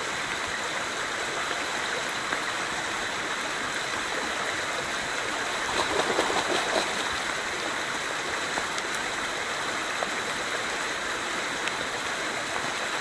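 Creek water rushing steadily over a shallow riffle. About six seconds in, a spawning Chinook salmon thrashes at the surface with a splash that lasts about a second.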